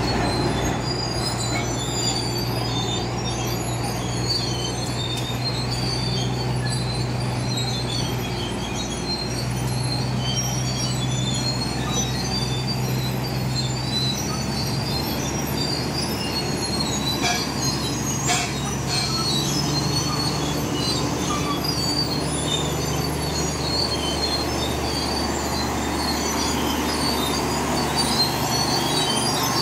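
BEML D155A crawler dozer working a coal pile, its six-cylinder Cummins KT1150 diesel running steadily under load, with high squealing and clanking from the steel tracks. The engine note shifts in pitch about halfway through.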